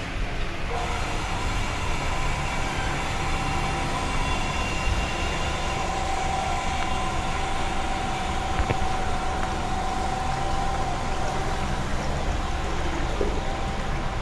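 Electric motor of a 200-litre mild-steel stirrer tank running steadily, driving its agitator shaft through the liquid: a continuous low hum with a steady whine over it that sets in about a second in.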